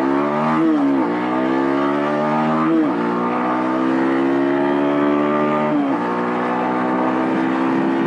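Vitacci XMT 250 motorcycle engine accelerating hard from a standstill, its pitch climbing through each gear and dropping at three upshifts, about one, three and six seconds in.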